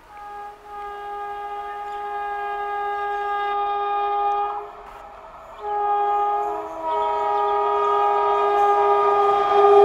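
Indian Railways electric locomotive's air horn sounding long blasts, three in all, growing louder as the train approaches at speed.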